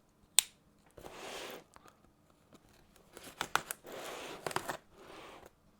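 Cardboard packaging being opened by hand, the tape cut or torn open: a sharp click about half a second in, then three stretches of scraping, tearing noise with small clicks.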